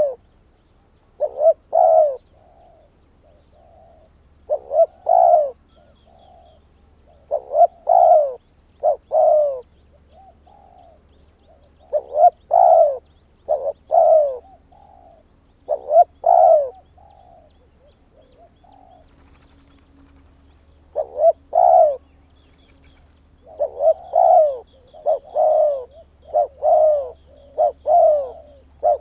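Spotted dove cooing: short phrases of two or three low coo notes, repeated every few seconds, then coming in a quicker run over the last few seconds.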